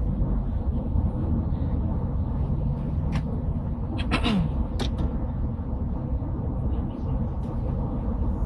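Steady low rumble of vehicle noise, with a few sharp clicks and a short downward-sliding tone about four seconds in.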